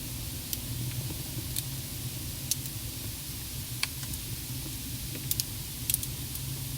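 Irregular sharp clicks and light crackles inside a car, about a dozen scattered over several seconds, a few in quick pairs near the end, over a steady low hum and hiss in the cabin.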